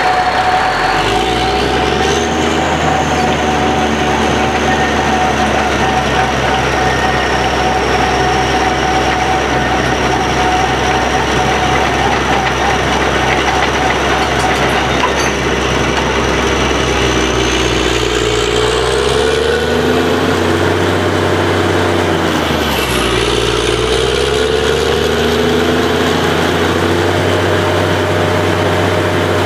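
Truck-mounted borewell drilling rig running steadily, a loud engine hum with a high whine over it. About two-thirds of the way through the pitch of the machinery swings down and up as the load changes, with the deep hum dropping out for a moment before settling again.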